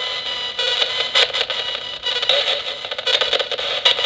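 Nanocom Coffin Edition spirit radio (ghost box) sweeping at random through radio channels: thin static hiss cut by frequent short clicks as it jumps from one frequency to the next.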